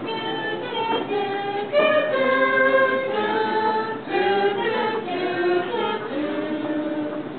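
A group of voices singing together without instruments, a cappella, moving through a series of held notes in several parts at once.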